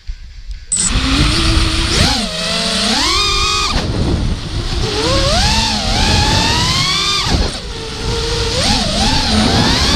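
FPV racing quadcopter's brushless motors (T-Motor F40 2500kV) spinning 5-inch props, a loud whine that rises and falls in pitch as the throttle is worked, cutting in less than a second in. The quad is flying with a bent motor shaft, bad bearings and bent props.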